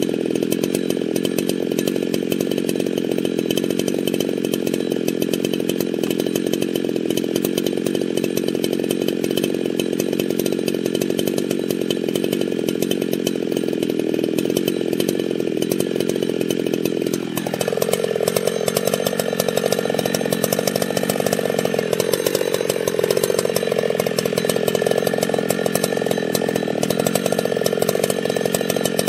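Husqvarna 61 two-stroke chainsaw running hard in wood. A little past halfway its engine pitch drops sharply, then dips and wavers under changing load.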